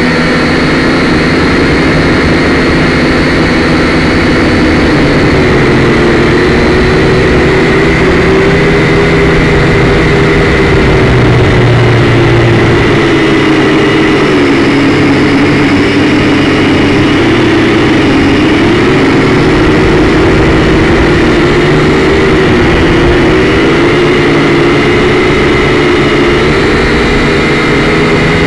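Syma X5C-1 quadcopter's four motors and propellers whining steadily while it hovers, heard close up through the drone's own onboard camera; the pitch wavers up and down as the motor speed is adjusted.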